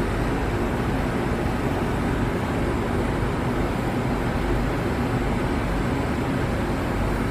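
Handheld butane torch burning steadily, its flame firing an enamel bead on a mandrel.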